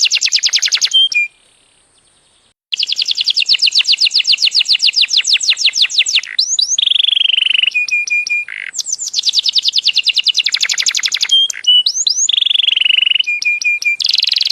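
A songbird singing a loud, fast song: long rolls of rapidly repeated high notes broken by short whistled notes, some held steady and some gliding. It stops briefly about a second in, then resumes.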